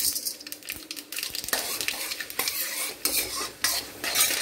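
Steel ladle stirring and scraping around a stainless steel kadai, metal on metal, while mustard seeds, urad dal and chana dal sizzle in hot oil for a tempering. The scrapes come again and again over the steady sizzle.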